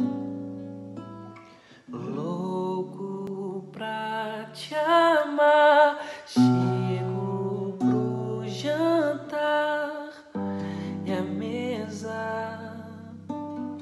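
Acoustic classical guitar playing sustained chords and notes, joined about four seconds in by a man's singing voice that comes and goes in phrases over the guitar.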